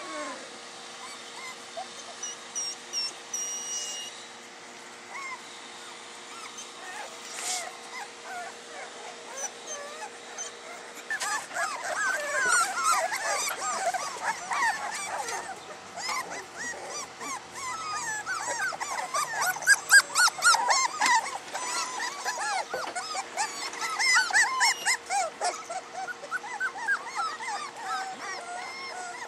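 Soft-coated wheaten terrier puppies whimpering and yipping, many small high voices overlapping. The whimpering is sparse at first and grows busier and louder about a third of the way in.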